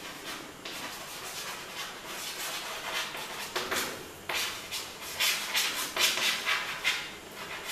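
Chalk writing on a chalkboard: an irregular run of short, scratchy strokes and taps as letters are written, some strokes louder than others.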